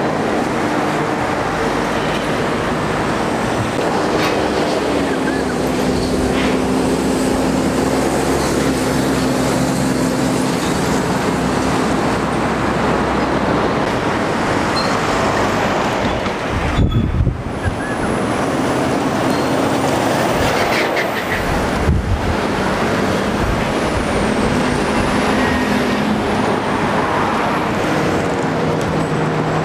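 Heavy road traffic: diesel lorries, a container prime mover and a double-decker bus passing one after another, with steady engine tones over tyre and road noise. A short dip and a few low thuds come about halfway through.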